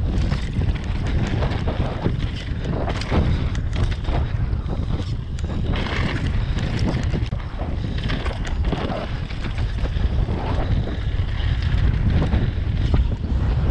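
Wind buffeting the microphone of a camera on a downhill mountain bike at speed, a steady rushing rumble broken by frequent short knocks and rattles from the bike over rough trail.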